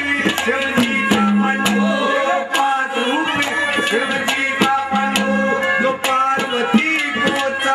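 A man singing into a microphone over harmonium and hand-drum accompaniment, with drum strokes keeping a steady beat and a note held low under the melody.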